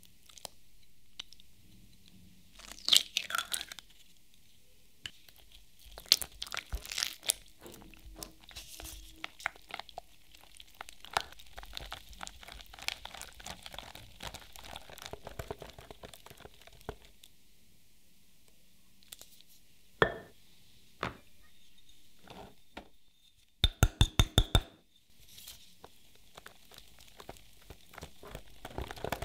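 Silicone whisk stirring thick chocolate cream-cheese batter in a glass bowl: soft wet scraping and squishing with irregular clicks against the glass. Late on there is a quick run of about eight sharp taps.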